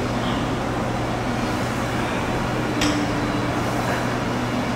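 Steady low mechanical hum throughout, with one sharp click about three seconds in.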